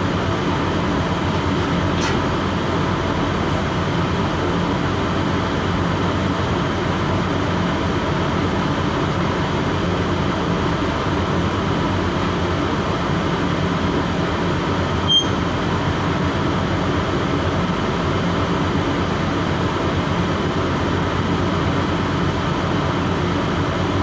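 A boat's engine running with a steady, unchanging drone, and a single brief click about fifteen seconds in.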